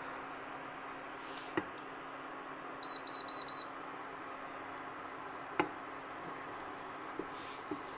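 Four quick high beeps from an induction hob's touch controls about three seconds in. Under them runs a steady hiss from the frying pan of minced beef and onion, and a wooden spatula knocks against the pan a couple of times.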